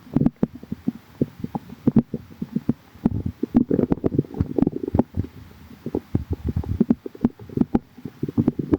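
Human stomach gurgling and growling: a rapid, irregular stream of short, low gurgles and pops, busiest in the middle.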